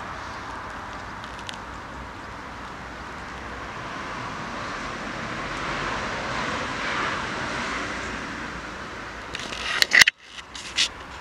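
Steady rushing background noise that swells a little midway, with a short cluster of sharp clicks and knocks about ten seconds in.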